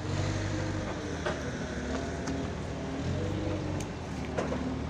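Truck diesel engine idling steadily, with a few light knocks.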